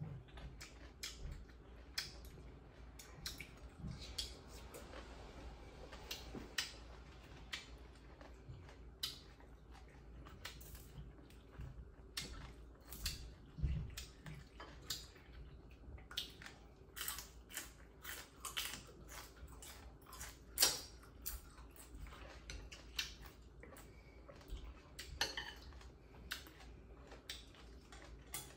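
Eating sounds: chewing pork offal, with mouth clicks and occasional clinks of plates and bowls. The sound is many short, irregular clicks, one louder about two-thirds of the way through, over a low steady hum.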